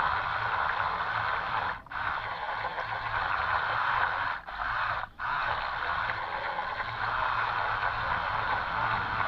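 Twin 130-size DC motors of a radio-controlled toy boat driving its propellers through the water: a steady motor noise. It cuts out briefly about two seconds in, and twice more at around four and five seconds.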